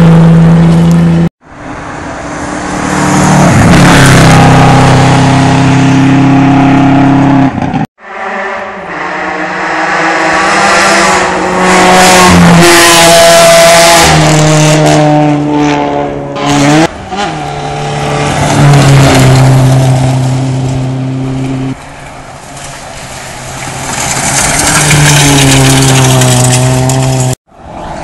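Rally cars at full throttle on a gravel stage, passing one after another in separate clips; the engines pull hard through gear changes, and the pitch drops sharply as a car goes by.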